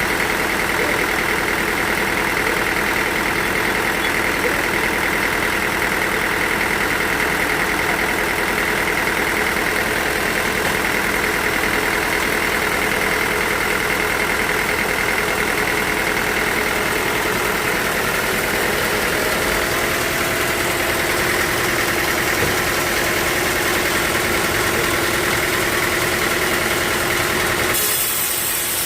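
Sawmill machinery running steadily: a constant motor drone with a high whine held throughout. About a second before the end the sound changes abruptly, the lower drone thinning and a high hiss coming in.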